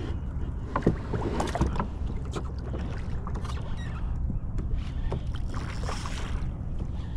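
Wind rumbling on the microphone over water lapping at a kayak while a hooked fish is reeled in. Scattered short clicks run through it, and there is a brief splash from the fish at the surface about six seconds in.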